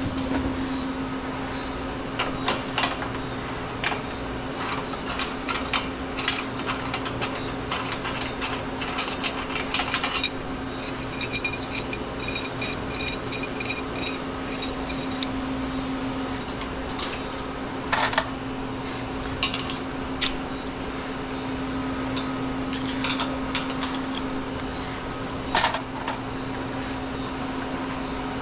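Metal tools and hardware being handled: scattered clinks and clanks, some ringing briefly, with louder knocks about eighteen seconds in and again near the end, over a steady low machinery hum.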